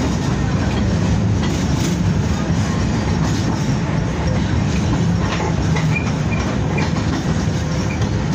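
A Belkommunmash BKM-60102 tram running along its track, heard from inside the car: a steady rumble of the wheels on the rails.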